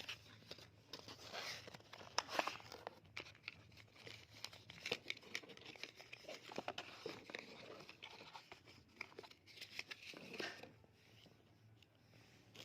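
Parcel packaging being torn open and crinkled by hand, with irregular faint crackles and rustles.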